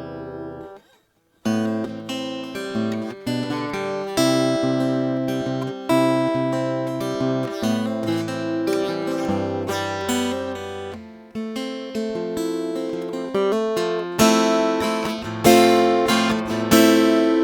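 Urban Player dreadnought acoustic-electric guitar played plugged in through its piezo pickup and preamp: a chord rings out and fades, then after a brief pause comes a run of picked notes and chords, with louder strummed chords near the end.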